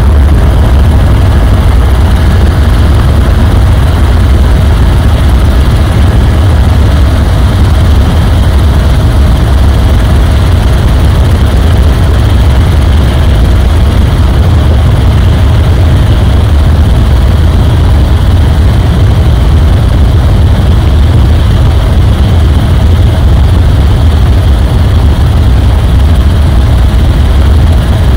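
Helicopter rotor and engine noise heard from inside the cabin in flight: a loud, steady low drone with a faint, even whine above it.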